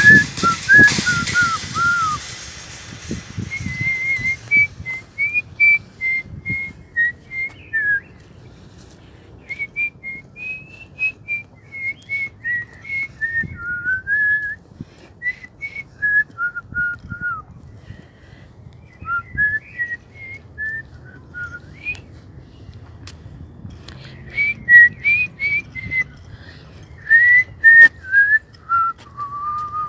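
A woman whistling a tune through pursed lips: a single clear tone stepping from note to note in phrases, with short pauses between them. Wind gusts on the microphone in the first couple of seconds.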